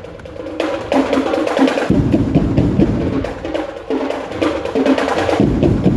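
Marching drumline playing a fast cadence: sharp snare and stick clicks with heavy bass drum hits that come in about two seconds in and again near the end.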